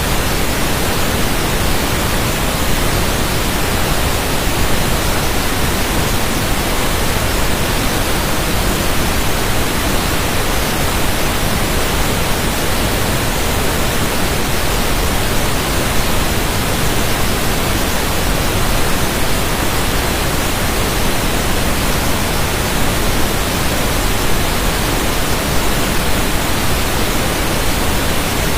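Steady rushing water: an even, unbroken hiss that never changes in level.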